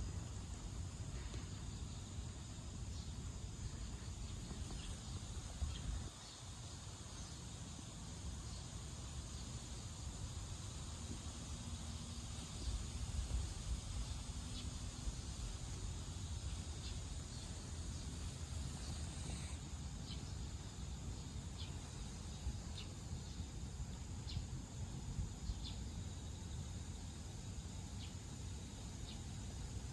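Outdoor ambience: insects, crickets or similar, chirping steadily, with a low rumble underneath and occasional short ticks, more of them in the second half.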